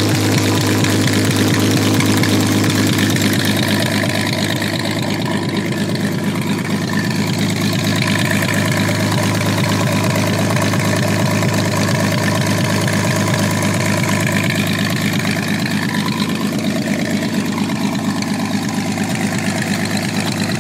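A 1946 Oliver 70 tractor engine idling steadily through twin straight chrome exhaust stacks fed by a split exhaust manifold.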